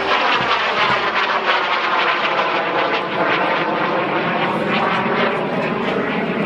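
Aero L-29 Delfín jet trainer's single turbojet engine as the aircraft flies past, its whine falling in pitch.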